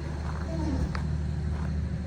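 Wanderlodge bus engine idling with a steady low rumble, the bus just stopped after being maneuvered.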